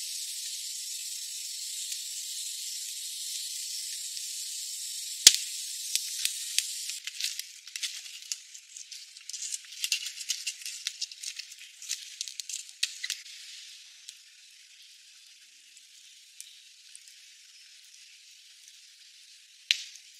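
Wood campfire hissing steadily, with a sharp pop about five seconds in. A run of crackles and pops follows as sparks fly, then the fire settles to a fainter hiss with one more pop near the end.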